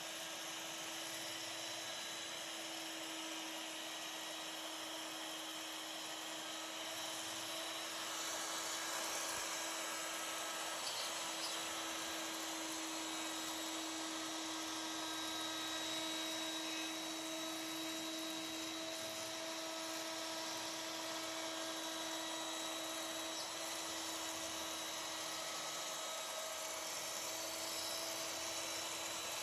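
ShopSabre CNC router's spindle running at high speed with a steady whine over a dense hiss, as the machine cuts.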